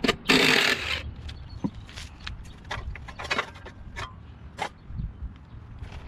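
A cordless drill-driver runs briefly, backing out a bolt on a push mower's engine cover. Scattered clinks and knocks follow as the cover is worked loose and lifted off by hand.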